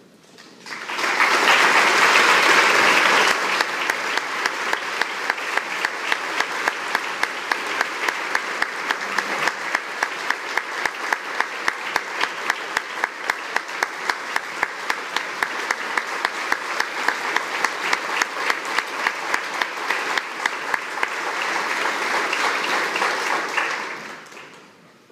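Audience applauding in a hall, loudest in the first few seconds. A steady run of sharp claps, about three a second, stands out through the middle, and the applause dies away near the end.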